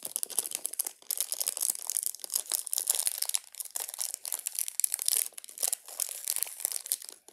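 Small plastic toy packaging crinkling and tearing as it is pulled open by hand: a dense, fast, high-pitched crackle with a couple of brief pauses.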